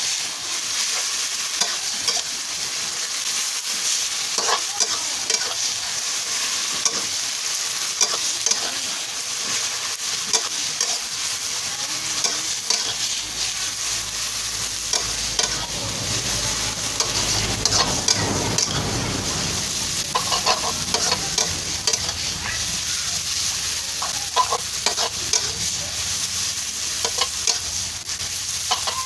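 Pad thai stir-frying in a steel wok: a steady sizzle, with a metal spatula scraping and clacking against the wok in quick, irregular strokes.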